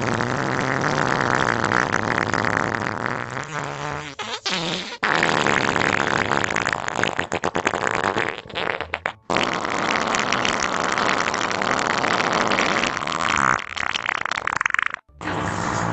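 Pooping and farting sound effect: long stretches of continuous fart noises, broken by brief pauses about 5, 9 and 15 seconds in.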